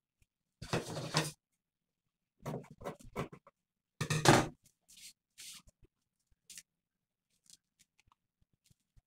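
Cloth rustling and flapping as a long strip of velvet trimming is lifted and laid down on the fabric: three short bursts about a second apart, the third the loudest, then a few small rustles.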